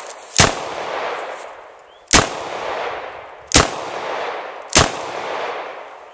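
Smith & Wesson Model 610 10mm revolver firing four shots about a second and a half apart, light-load CCI Blazer ammunition, each shot followed by a long echo dying away.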